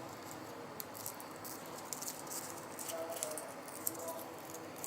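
Scattered light clicks and taps of small plastic and metal smartphone parts being handled and pressed into place while an OPPO F1s is reassembled.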